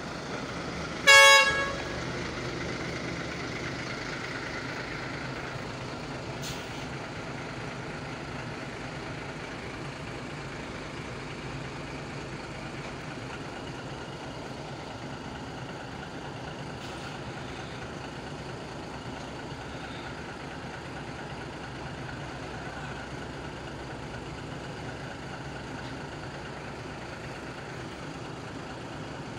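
Intercity coach bus horn giving one short, loud blast about a second in. The bus's engine then runs steadily as it pulls away.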